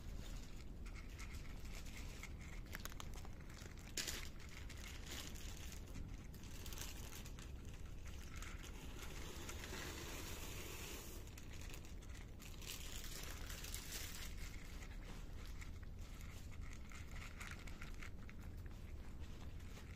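Cats chewing dry kibble: a string of small, irregular crisp crunches and clicks, over a steady low rumble.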